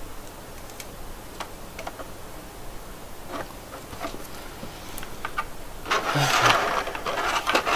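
Small plastic clicks and taps as tiny action-figure parts are handled, then a louder crackling of a clear plastic blister tray being handled, starting about six seconds in and lasting under two seconds.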